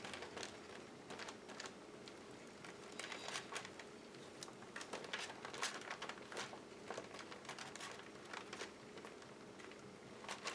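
Faint rustling and crinkling of paper being handled, with many small irregular clicks and taps.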